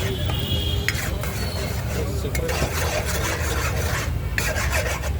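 Spoon or spatula stirring Maggi noodles in a cooking pan, scraping against the pan with irregular strokes and a few sharp clicks.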